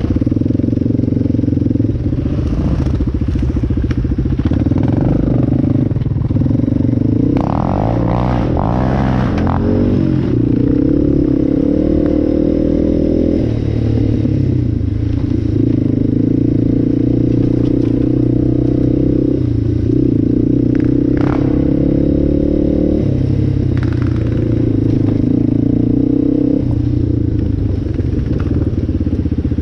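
Single-cylinder four-stroke ATV engine running at steady trail speed, with a run of revving about eight seconds in and several step changes in pitch as the throttle or gear changes. A few sharp knocks and clatter from the machine jolting over the trail.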